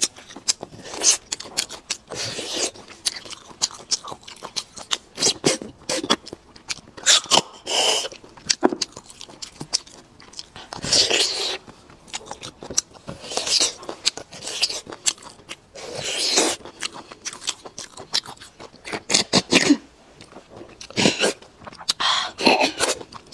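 Marrow being sucked and slurped out of braised bone sections, close to the microphone. Wet slurps come every two to three seconds, with chewing and lip smacking between them.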